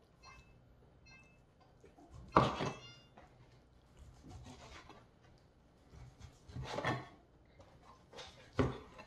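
Long slicing knife sawing through smoked brisket and scraping on a plastic cutting board, in a few strokes a second or two apart, the loudest about two and a half seconds in.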